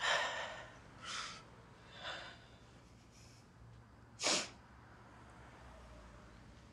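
A woman's sharp, breathy inhalations and sniffs, about one a second for the first few seconds, then a sharper, louder one about four seconds in.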